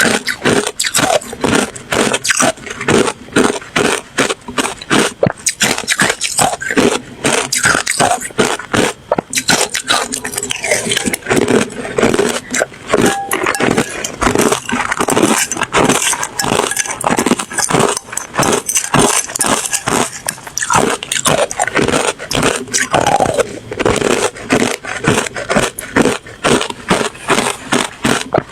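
Ice being chewed right at the microphone: continuous, rapid crunching and cracking of hard ice between the teeth, many crunches a second.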